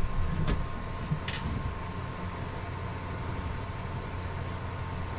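15W-40 motor oil pouring from a plastic gallon jug through a funnel into a diesel engine's oil filler, refilling it after an oil change, under a steady low hum. Two sharp clicks in the first second and a half.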